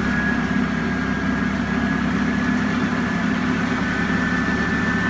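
Electric cutter motor spinning a ride-on mower's belt-driven blades at a steady speed. It runs with a high whine that creeps slowly upward in pitch over a low hum.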